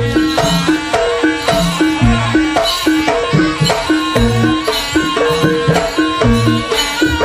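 Live Javanese gamelan music for a jaranan horse dance: low hand-drum strokes in a quick, steady pulse under repeated pitched metal-keyed notes.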